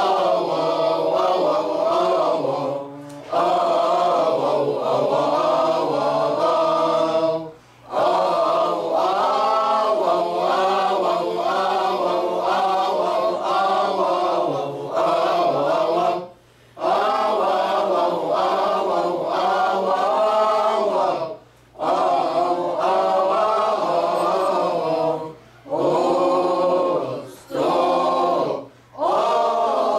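Mixed choir of men and women singing an Arabic church hymn without accompaniment, in long phrases broken by several short breath pauses.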